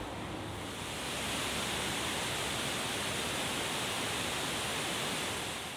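Multnomah Falls pouring: a steady rush of falling water that swells in about a second in and fades out at the end.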